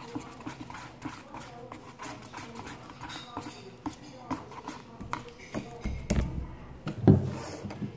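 A spoon stirring a glue mixture for slime, not yet activated, in a plastic bowl: a run of small sticky clicks and scrapes, followed by a few dull thumps near the end.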